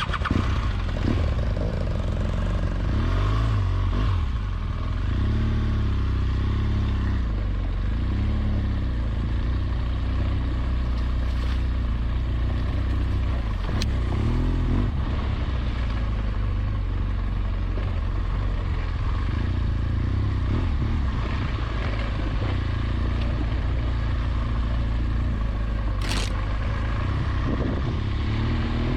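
BMW R1200GS Adventure's boxer-twin engine running under a riding load off-road, its revs rising and falling repeatedly with the throttle, with scraping and clattering from the bike over rough ground. There is a sharp click about halfway through and a short burst of noise near the end.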